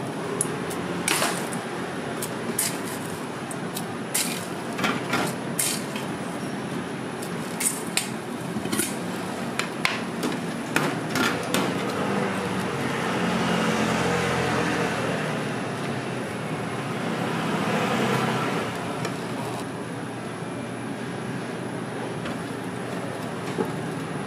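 Metal tools clicking and knocking against a red bean cake griddle, in sharp irregular strikes, about a dozen in the first half. Steady street and traffic noise runs underneath and swells twice in the second half, like vehicles passing.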